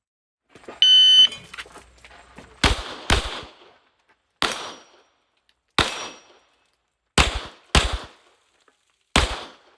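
A shot timer gives a short electronic start beep about a second in. A pistol then fires seven shots in uneven strings: two quick pairs, then single shots, each with a short echo.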